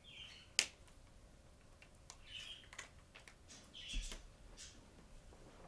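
Felt-tip marker squeaking in short strokes as letters are drawn on paper, with a few sharp clicks, the loudest about half a second in.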